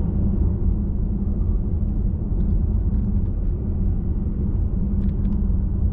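Steady low rumble of a car driving on the road: engine and tyre noise.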